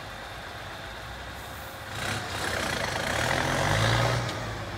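Ten-wheel dump truck's diesel engine pulling away, revving louder from about two seconds in and easing off near the end.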